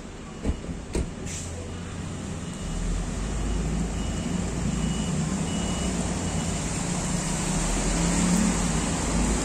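City bus's diesel engine rumbling as the bus approaches through the roundabout, growing louder from about three seconds in, with tyres hissing on the wet road. Two sharp knocks about half a second apart near the start, and a thin high beep repeating faintly in the background.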